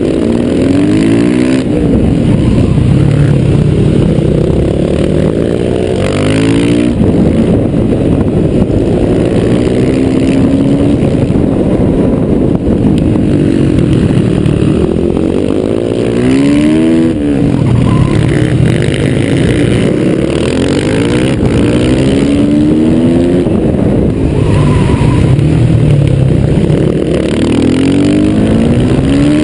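On-board sound of a Yamaha YZF 450's single-cylinder four-stroke engine under hard riding, revving up in repeated rising sweeps that drop back at each gear change or as the throttle closes for a corner.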